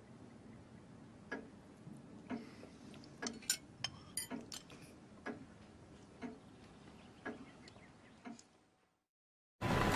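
Quiet dining room with a clock ticking about once a second, while spoons clink against soup plates and glass in a brief cluster around the middle. It cuts to silence near the end.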